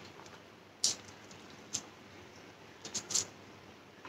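Quiet eating sounds: about four short, sharp clicks, two of them close together near the end.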